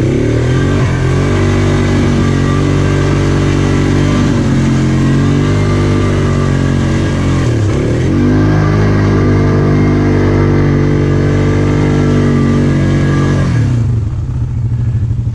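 ATV engine working hard under throttle as the quad pushes through deep mud. The revs hold fairly steady, sag briefly about halfway, climb again, then drop off near the end.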